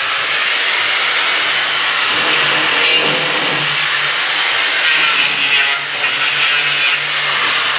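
Corded angle grinder with an abrasive cut-off wheel cutting through a steel post on a dump truck body: a loud, steady grinding hiss with a thin high whine, dipping briefly near six seconds in.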